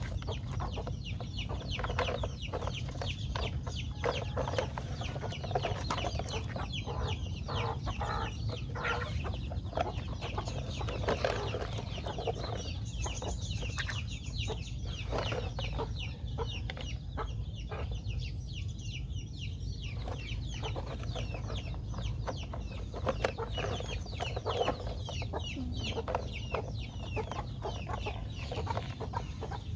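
Hands scraping up and dropping loose, damp soil into a plastic toy dump truck bed: a continuous run of gritty scrapes and crumbles, over a steady low rumble.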